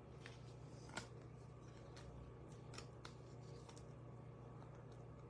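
Near silence with a few faint clicks and light rustles of trading cards being handled and sorted, the clearest click about a second in.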